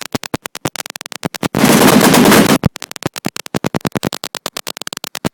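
Machine guns firing in rapid overlapping strings of shots, with a solid burst of continuous fire lasting about a second, starting about one and a half seconds in.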